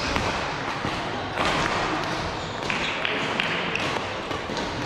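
Sounds of a match in a sports hall: sharp knocks and thuds of play, with a few short squeaky tones and faint voices in the background.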